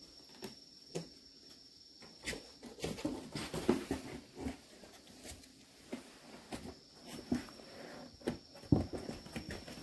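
Cat eating dry kibble from a metal bowl, with scattered clicks and knocks that are densest a few seconds in.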